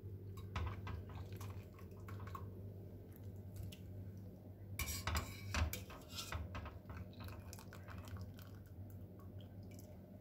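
Metal kitchenware clinking and clattering: a wire skimmer knocking against a stainless steel pot as cooked pasta is lifted out of the water. The clinks come in two busy clusters, one early and one around five to six seconds in, with scattered ticks between, over a low steady hum.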